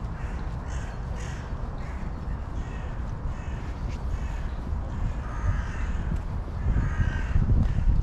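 Crows cawing several times, a few short calls spread across the few seconds, over a steady low rumble of wind on the microphone.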